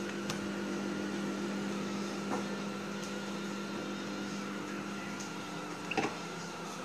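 Microwave oven running with a steady hum while it heats a mug of milk. A short knock sounds about six seconds in.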